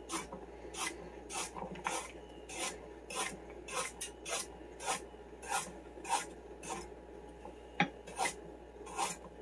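Knife slicing peeled carrots into coins on a cutting board: a steady run of short, evenly spaced cuts, a little under two a second, with one sharper knock about eight seconds in.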